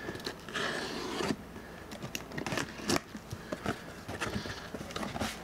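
Cardboard shipping box being opened by hand: tape and cardboard flaps rasp and scrape as they are pulled apart, with scattered taps and knocks on the box.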